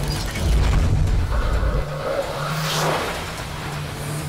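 Cartoon spaceship sound effects: a deep rumble as the ship launches, then a rushing whoosh about three seconds in as it speeds by.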